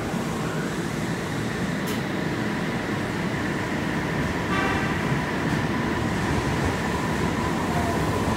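Kobe Municipal Subway 5000-series train heard from inside the car while running: a steady rumble with a faint whine, gradually getting a little louder. A brief high chirp sounds about halfway through.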